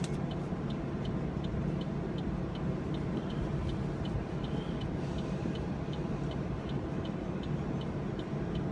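Inside a car cabin with the engine idling: a steady low hum, with a light, regular ticking about two and a half times a second.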